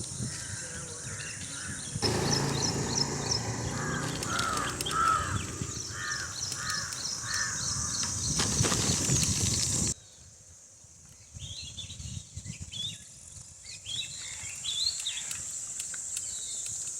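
Crows cawing, a run of about five caws in quick succession, over a steady rush of wind noise. About ten seconds in, the rush cuts out, leaving a quieter background with smaller birds chirping and a steady high hiss.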